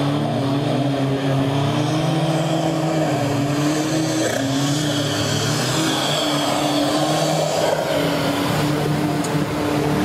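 Off-road 4x4 engines running hard under load as the trucks push through a river, their pitch holding fairly steady with a few small shifts. Water splashes and sprays around them, loudest in the middle of the stretch.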